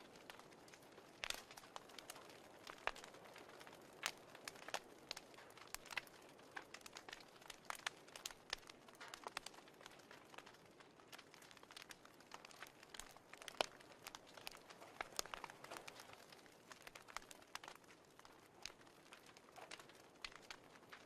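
Fireplace crackling faintly: a soft steady hiss with irregular sharp pops and snaps from burning wood.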